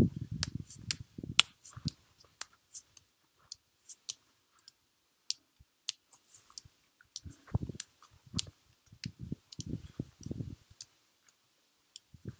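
Forearms striking a tree trunk in quick clusters of dull thuds, at the start and again in the second half, with sharp dry clicks scattered throughout.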